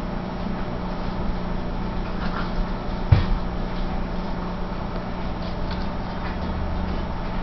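Saint Bernard puppies scuffling on a bare wooden floor, with faint clicks and a single thump about three seconds in, over a steady low hum.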